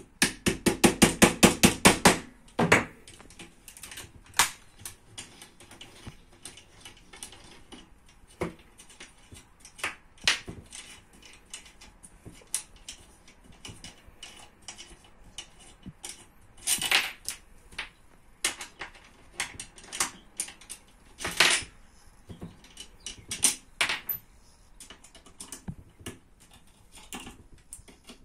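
Metal clicks, taps and knocks from tools and parts while the front end of a gas blowback airsoft AR-15 is taken apart. It opens with a fast run of about a dozen clicks, then scattered single clicks and knocks.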